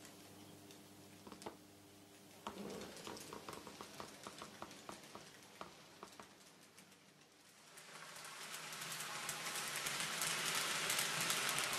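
N-scale model train running on its track. The coaches' wheels click over the rail joints, several clicks a second. From about eight seconds in, a steady rolling hiss with fine clatter rises and gets loud as the train headed by the freshly serviced tank locomotive 65 018 comes round the curve towards the microphone.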